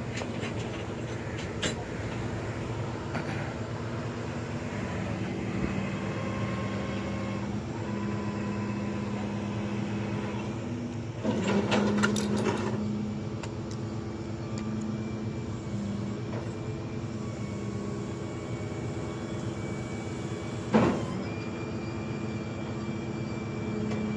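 Flatbed tow truck running with a steady hum and whine while a car is loaded onto its bed, with a cluster of metal clanks about halfway through and a single sharp bang near the end.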